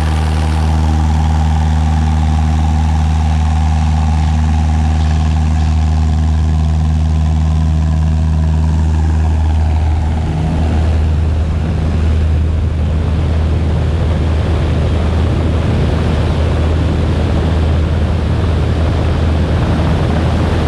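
Cessna 172's piston engine and propeller running under power, a steady low drone. From about halfway in, a rushing wind noise builds over it as the plane picks up speed on its takeoff roll and lifts off.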